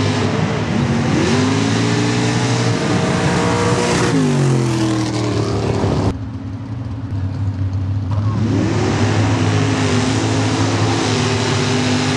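Mud-racing trucks' engines at full throttle down a dirt track: the pitch climbs, holds high, then falls away as the run ends. After a sudden cut about six seconds in, another engine climbs in pitch and holds at high revs.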